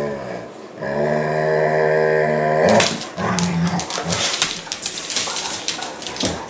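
Dogs play-fighting: a long, steady growl from about one second in to nearly three seconds, then scuffling, with short growls and the rapid clicking of claws and paws on a hardwood floor.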